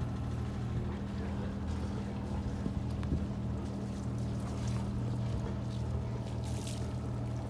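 A sailboat's inboard engine running steadily under way at low speed, a constant low hum.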